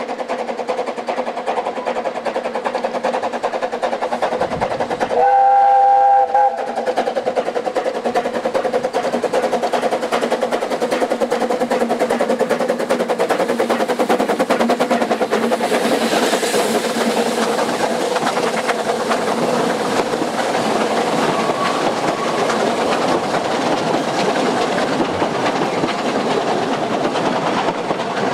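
Narrow-gauge steam locomotive chuffing steadily as it approaches, blowing one whistle blast of about a second and a half about five seconds in, which is the loudest sound. It then passes close by, followed by its coaches clattering over the rail joints.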